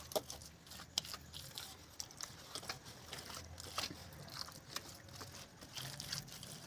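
Wet mud plaster being scraped and smoothed over brickwork with a small trowel and bare hand: gritty scraping and smearing with scattered sharp clicks.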